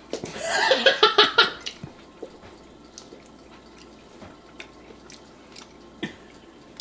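A person's short vocal outburst in rapid pulses, about five a second, lasting under two seconds, followed by faint mouth clicks and chewing.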